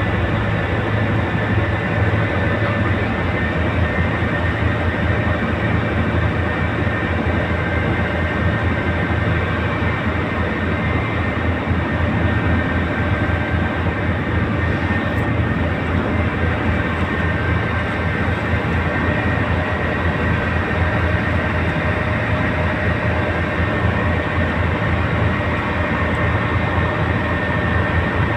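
Tugboat's diesel engine running steadily under load while towing a barge: a deep, rapid throb with a faint steady whine above it.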